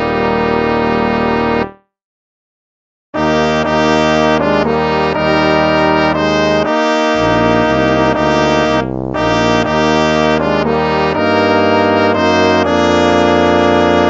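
Instrumental hymn music in slow, sustained chords with a brass-like sound. It fades out under two seconds in, falls silent for just over a second, then starts again.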